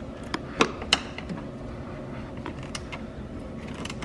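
Ratchet wrench on an extension and swivel socket clicking and knocking against metal as it works on a 13 mm bolt holding a clutch master cylinder to the firewall. A few sharp clicks come in the first second, then fainter scattered ticks.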